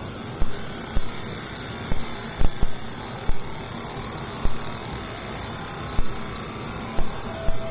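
Laser engraving machine running on a pistol slide, with a steady high hiss and fan noise and irregular knocks. A faint steady tone comes in near the end.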